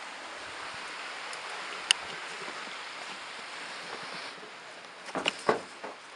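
Steady outdoor hiss that drops about four seconds in, as the camera passes into the cave. There is a sharp click about two seconds in, and near the end a few scuffs on the dusty floor, the loudest sounds here.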